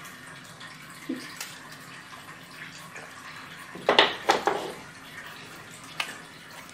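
Salt brine sloshing and splashing in a pot as rounds of fresh stretched-curd cheese are lowered into it by hand, with a cluster of three splashes about four seconds in and a sharper knock near the end.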